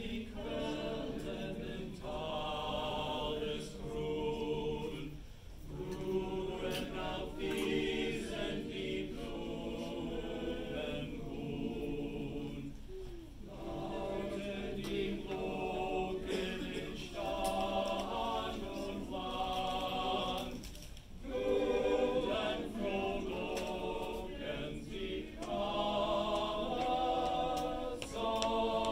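Men's choir singing a cappella in several voice parts, in long phrases with short breaths between them.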